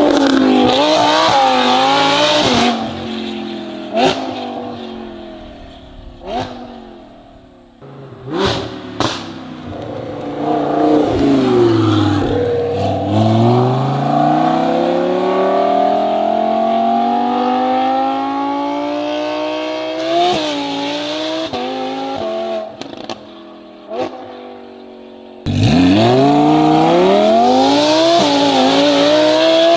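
Audi R8 GT's V10 through a titanium exhaust with equal-length headers: a hard rev at the start, then coming off throttle with several sharp pops. The revs then climb steadily over several seconds, and near the end a sudden full-throttle pull starts, with the pitch rising.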